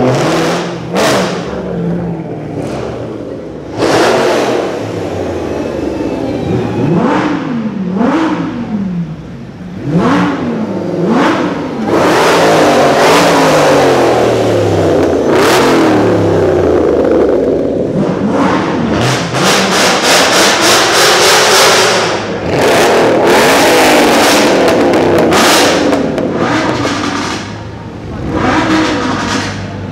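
Sports car engines revving hard one after another as the cars pull away, the revs repeatedly rising and falling, with a loud sustained stretch in the middle that carries a quick run of sharp exhaust pops.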